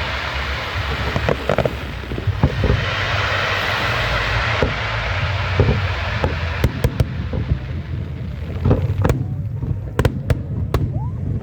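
Fireworks display: a dense rushing crackle at first, then a quickening series of sharp bangs from shells bursting, thickest near the end.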